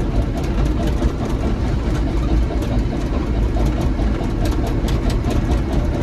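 Caterpillar D6N bulldozer's diesel engine running steadily, heard from inside the cab, with frequent light clicks over it.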